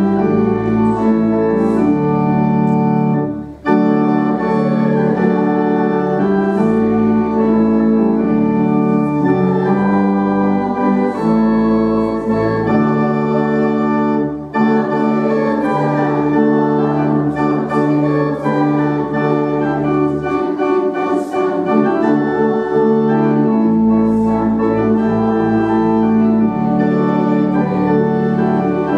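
Church organ playing slow, sustained chords, with brief breaks between phrases about three and a half and fourteen and a half seconds in.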